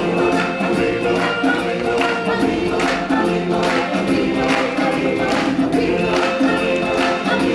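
Choir singing over a full musical backing, with a drum hit about once a second.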